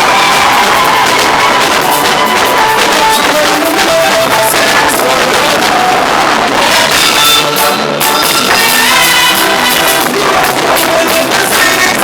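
Loud, upbeat live praise band music: a melody over a steady drum beat.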